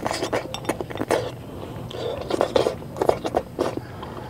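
Close-up eating sounds: slurping and chewing soft taro stalks in sardine broth, with a metal spoon clinking against a glass bowl in quick short clicks.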